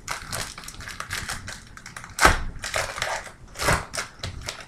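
Foil wrapper of an Elite football card pack crinkling and tearing as the pack is ripped open by hand, a dense crackle with louder crunches about two and nearly four seconds in.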